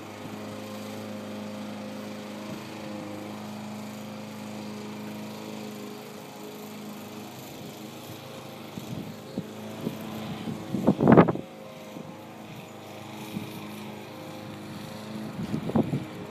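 Electric recumbent cycle's motor humming steadily, a little fainter after about six seconds. A short, loud rushing burst about eleven seconds in and a smaller one near the end.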